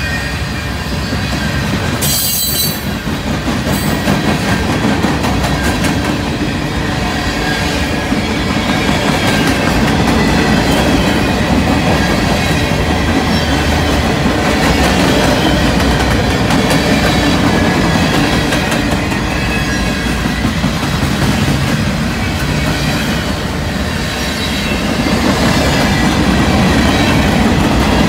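Freight cars rolling past close by: steady rumble and clatter of steel wheels over the rails, with a faint high wheel squeal running through it and one sharp knock about two seconds in.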